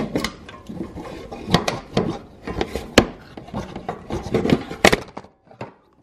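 A black plastic panel, its rivets drilled out, is worked loose from a utility vehicle's metal frame. It gives irregular scraping and rubbing with scattered sharp clicks and knocks, which stop shortly before the end.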